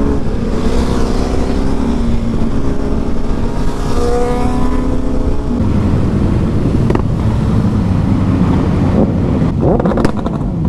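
Motorcycle engine running while riding. The engine note holds fairly steady for the first half, then shifts and wavers, with rising sweeps in pitch near the end.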